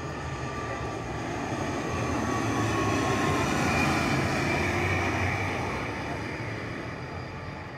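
ATR 72 twin-turboprop airliner flying low past on landing approach, its engines and propellers droning with steady tones. The sound swells to its loudest about four seconds in and then fades, one tone dropping slightly in pitch as it passes.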